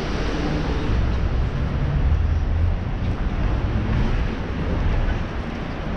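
Steady low rumble of street traffic, with no single clear event standing out.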